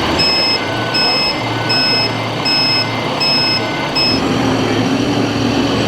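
Reversing beeper on a scale RC construction vehicle, giving six evenly spaced high beeps, about one every 0.8 seconds, then stopping about four seconds in, over a steady low hum and hall noise.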